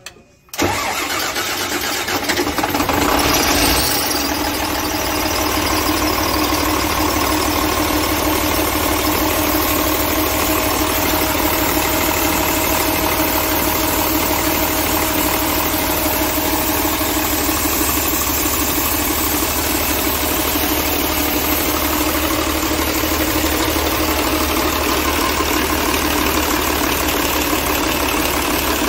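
Weichai WD615 six-cylinder diesel engine starting about half a second in, running hard for a few seconds, then settling into a steady idle. This is its first start after a cylinder-head valve-seal job, and it runs with no problem.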